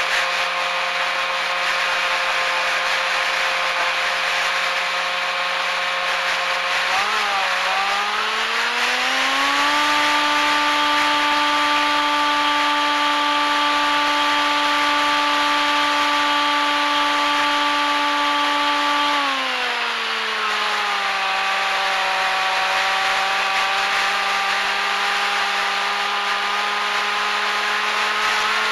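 Electric motor and propeller of a radio-controlled model aircraft whining, heard on board over a rush of wind. The pitch climbs as the throttle opens about seven seconds in, holds steady, falls back just before twenty seconds, then creeps slowly up again.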